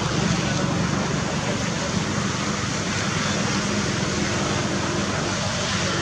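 Steady background noise: a low rumble with an even hiss above it, with no distinct event standing out.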